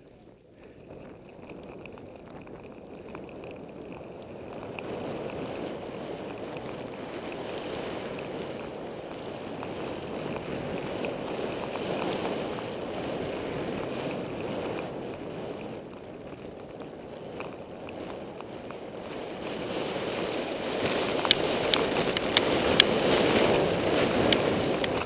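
Skiing downhill through deep fresh powder: wind rushing over a goggle-mounted camera and skis hissing through the snow, growing louder as speed builds, with a short easing about two thirds through. A few sharp clicks come near the end.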